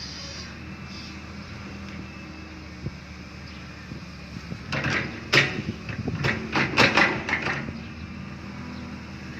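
Excavator diesel engine running steadily, with a burst of clanks and knocks from the bucket and digging gear between about five and seven and a half seconds in.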